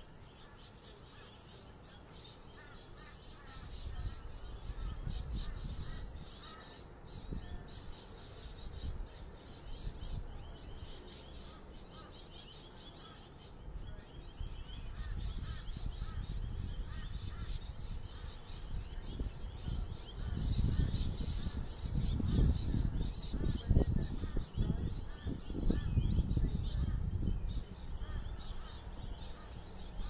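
Birds calling in short chirps throughout, over a low rumble of wind or traffic noise that swells briefly about four seconds in and again, louder, from about twenty seconds in until near the end.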